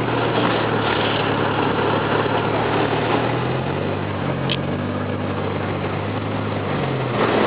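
Four-wheel-drive vehicle's engine running with a steady low hum over a constant rushing noise, the engine note shifting about halfway through, with one short tick near the middle.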